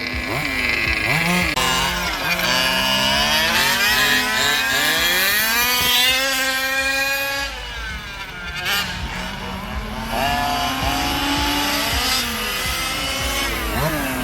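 Several 1/10-scale radio-controlled race cars running laps, their motors repeatedly rising and falling in pitch as they accelerate and brake, several overlapping at once.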